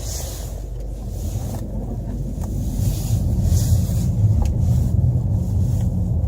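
Car driving, heard from inside: a steady low rumble of engine and road with a light hiss, getting louder about halfway through. The intermittent hum the owner is chasing is not heard.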